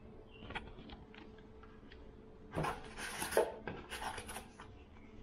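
Packaging handled by hand: a few light clicks and taps, then about two seconds of crinkling and rustling of plastic blister packs and card, loudest about halfway through.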